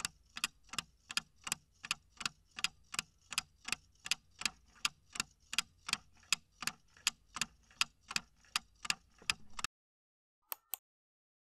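Countdown-timer sound effect: an evenly paced clock ticking, a little under three ticks a second, that stops as the timer reaches zero. Two short blips follow near the end.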